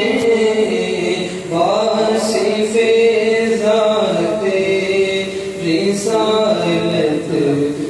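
A man singing a manqabat, a devotional poem in praise of a saint, unaccompanied into a microphone, holding long notes that bend and waver in pitch.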